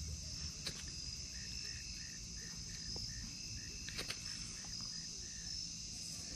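Evening insect chorus: a steady high trill, with a run of short evenly spaced chirps, about four a second, through the middle. A couple of faint clicks from hands handling the tackle.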